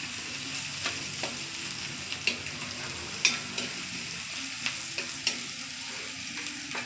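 Chopped onion and garlic sizzling in hot oil in a metal wok as they are sautéed, with a steady hiss and sharp clicks and scrapes of the stirring utensil against the pan every second or so.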